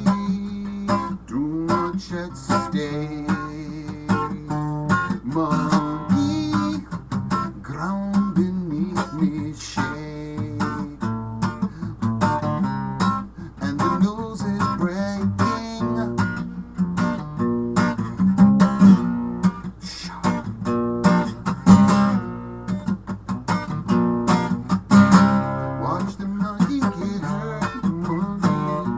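Steel-string acoustic guitar strummed and picked in a continuous instrumental chord passage, the strokes coming quickly and evenly.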